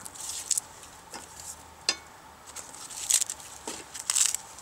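Rotten willow wood being broken and crumbled by hand: scattered dry crackles and rustles, with a sharp snap about two seconds in.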